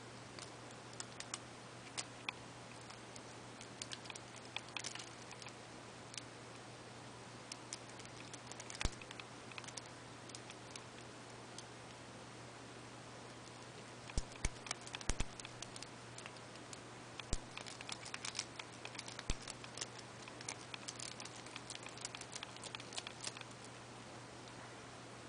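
Lock pick scraping and clicking against the wafers of a seven-wafer Hyundai car trunk lock under light tension: irregular small clicks throughout, with a handful of sharper clicks around the middle, over a steady low hum.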